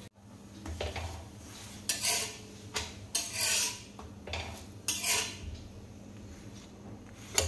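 Steel spatula scraping across a cast-iron tawa as it lifts off a folded ragi dosa, in a string of irregular scrapes and clinks. The last clink, near the end, is the sharpest.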